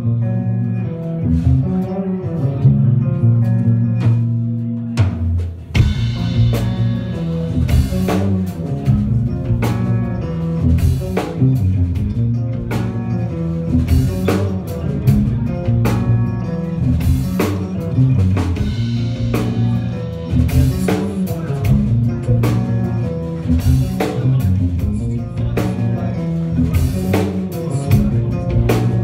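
Live rock band playing with electric guitars, bass and drum kit. A guitar-led opening with sparse drum hits gives way to the full band with steady drumming about six seconds in.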